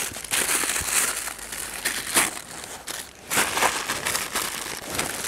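Plastic packaging of nuts crinkling and rustling in irregular bursts as it is handled.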